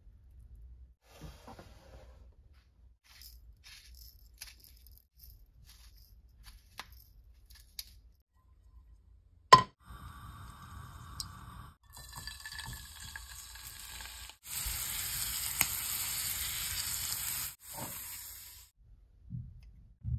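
Chopsticks clicking lightly while shredded carrot is laid onto toast, then one sharp click about halfway. Oil is poured into a frying pan and starts sizzling, a steady frying hiss that grows louder for a few seconds and stops shortly before the end.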